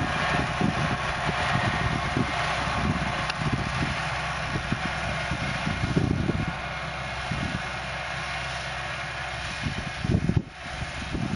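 Fiat 65-46 DT tractor's diesel engine running steadily while pulling a pneumatic seed drill, with wind buffeting the microphone. The sound drops out briefly about ten seconds in.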